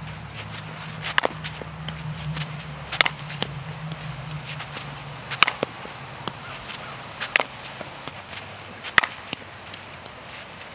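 Softball bat striking softballs in a hitting drill: about five sharp cracks, roughly two seconds apart, over a low hum that fades out about halfway through.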